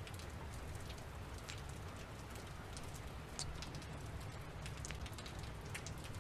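Steady background rain with a low rumble beneath it and scattered light ticks of drops.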